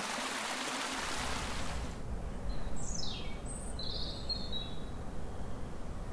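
Mountain stream rushing, fading out about two seconds in. Then a bird calls twice over a low steady rumble: a falling whistle, then a shorter note.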